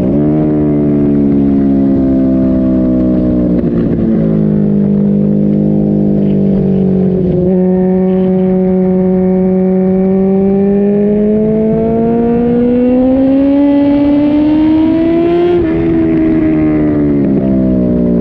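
MV Agusta racing motorcycle engine running hard on a circuit lap, heard from an onboard camera. The engine note sinks over the first few seconds, shifts again around four and seven and a half seconds in, climbs steadily under acceleration from about ten seconds, drops suddenly at a gear change at about fifteen and a half seconds, then falls toward the end.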